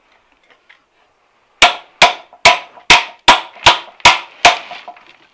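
Eight sharp metal-on-metal blows, about 0.4 s apart and starting about a second and a half in, each ringing briefly: tapping the steel leaf-spring pack of a Ski-Doo Alpine ski straight.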